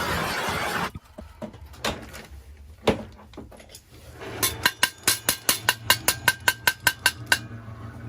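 A loud steady rushing noise cuts off about a second in, followed by a few scattered clicks and knocks, then a fast, even run of sharp metallic clicks, about five a second, for about three seconds.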